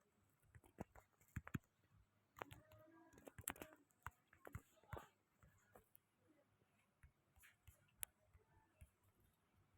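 Faint, irregular clicks and light taps against near silence, with a faint murmur of voice about two and a half seconds in.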